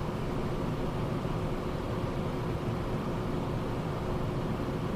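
Steady in-flight cockpit noise of a Cessna Citation Sovereign business jet, an even rush of airflow and engine noise with a faint steady hum.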